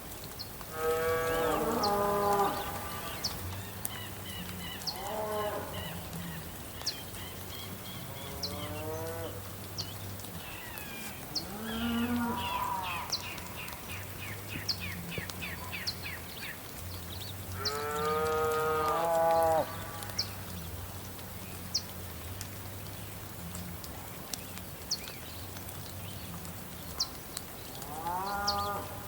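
Cows mooing again and again, about six long drawn-out calls, the loudest about a second in and around eighteen seconds in. Under them runs the steady hiss of soft rain, with short high chirps and ticks scattered through it.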